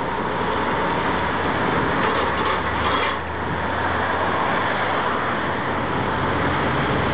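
KiwiRail DBR-class diesel locomotive engine running steadily as the locomotive moves slowly, a low engine drone under an even wash of noise.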